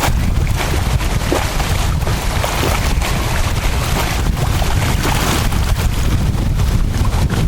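Strong wind blowing hard across the microphone: a loud, steady low rumble under a rushing hiss.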